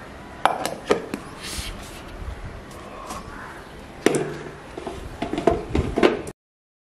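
Stainless steel mixer-grinder jar being handled: a few sharp knocks and clicks as its plastic lid is fitted and the jar is seated on the mixer base, with a quicker cluster of clacks near the end. The sound then cuts off suddenly.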